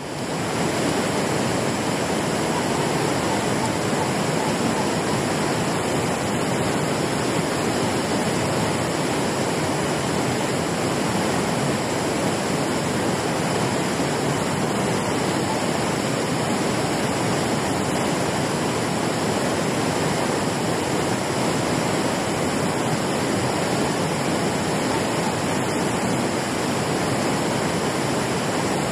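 Water rushing steadily down a low concrete weir spillway.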